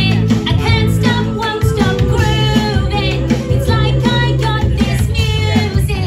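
A children's dance song, a woman singing over a bass line, played loud through the stage's PA speakers.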